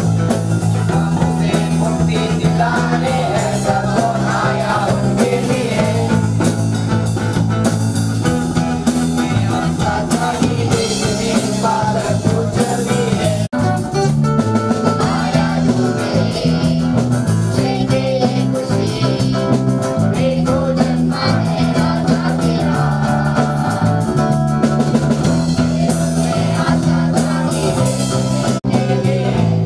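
Live band music: a steel-string acoustic guitar strummed over an electric bass, with a group singing along into a microphone. There is a brief drop about a third of the way through.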